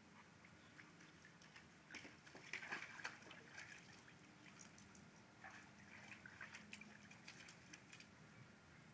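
Faint splashing of water as a husky moves about in a shallow plastic kiddie pool, in two stretches, the first a couple of seconds in and the louder.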